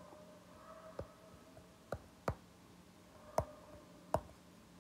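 Stylus tapping on a tablet's glass screen while writing: about five sharp, separate clicks at uneven spacing over a faint steady hum.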